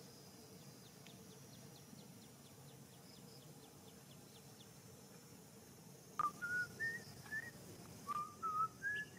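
A person whistling a short tune of clear notes that climb step by step in pitch, played twice from about six seconds in; before that only faint, light ticking.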